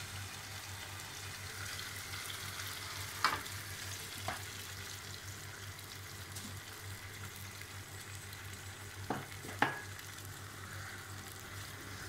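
Tomato and onion sauce sizzling steadily in a frying pan as eggs cook in it, with four short sharp clicks, the loudest about three seconds in and another near ten seconds.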